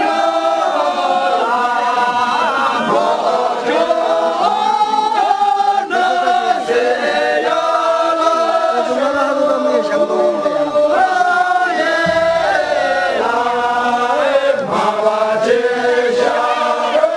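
A group of Tamang villagers singing a syabru song together, many voices in one continuous sung line with held notes that shift in pitch.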